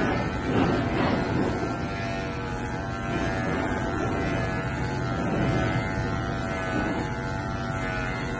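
Corded electric pet hair clippers running with a steady hum as they are pushed through a dog's fluffy coat.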